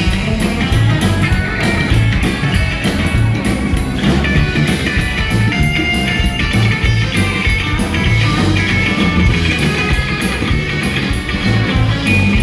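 Rockabilly band playing an instrumental break: electric guitar lead notes over a walking bass line and a steady drum beat.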